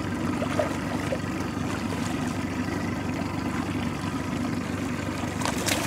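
Boat motor running steadily at trolling speed, with a hooked trout splashing at the surface near the end.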